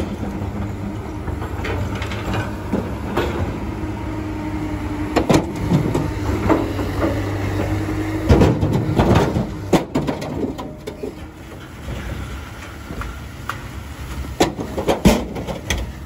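Komatsu hydraulic excavator running and loading sand and rock into a dump truck bed: a steady engine hum with a held higher tone for a few seconds, broken by knocks and thuds as loads land in the bed, the loudest a little past halfway and near the end.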